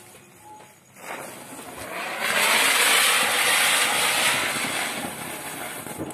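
Ground spinner firework (chakri) hissing as it spins and throws sparks. The hiss starts about a second in, is loudest for a couple of seconds, then fades as it burns out.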